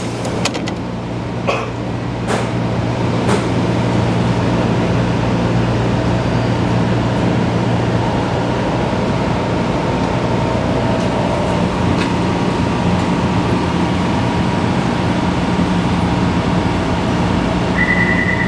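Taipei Metro 341-series refurbished train running, heard from inside the car: a steady low hum and a faint steady tone from its traction inverter, which seems to be making an abnormal noise. A high beeping tone sounds twice near the end.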